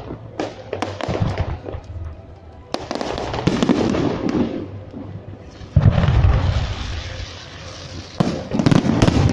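Fireworks display: aerial shells bursting, first as a string of sharp separate bangs, then as loud rolling stretches of booming and crackle. The loudest starts about six seconds in.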